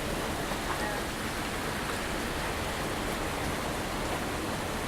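Heavy rain falling steadily, a constant even hiss of downpour.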